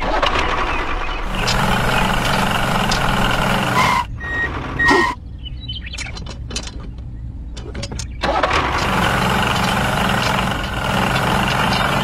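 Heavy diesel engine sound running steadily, dubbed over a toy tractor, with two short beeps about four seconds in. A quieter stretch of small clicks follows, and the engine comes back about eight seconds in.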